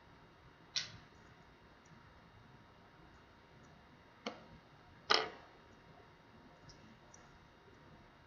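Three sharp handling clicks of tools and parts on a small tablet under repair: one about a second in, one about four seconds in, and the loudest just after five seconds.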